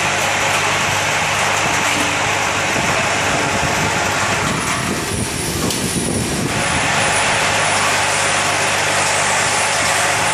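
Several stainless-steel vibratory bowl feeders running together: a steady electromagnetic hum under a constant dense rattle of small plastic parts being shaken around the bowls and down the chutes. The upper part of the rattle briefly dulls about five seconds in.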